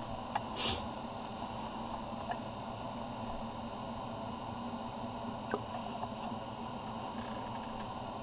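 Steady hiss of a portable propane heater running in a small enclosed shack, over a low hum. There is a brief rustle about half a second in and a few faint clicks.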